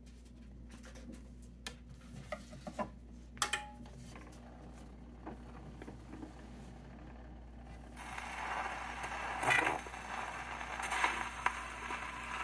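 Clicks and knocks as a 78 rpm record is handled and the tone arm and soundbox of a Victor Victrola acoustic phonograph are moved. About eight seconds in, a steady hiss of needle surface noise begins, with a couple of louder thumps, as the needle rides the record's lead-in groove.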